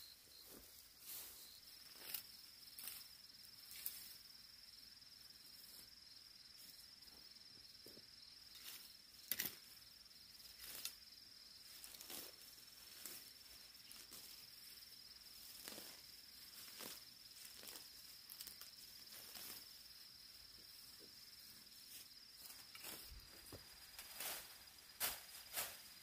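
Faint rustling and crackling of dry weeds and brush being pulled up and tossed by hand, in short irregular bursts with a few sharper crackles. A faint steady high-pitched insect trill runs underneath.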